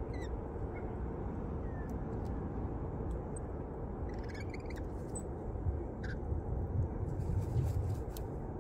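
Birds at a seed feeder giving short, faint high chirps and a brief burst of chatter about halfway through, over a steady low outdoor rumble that swells near the end.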